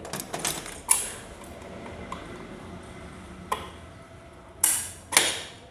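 Metal motorcycle clutch parts clinking and knocking as they are handled, a few sharp metallic clicks with the loudest two near the end.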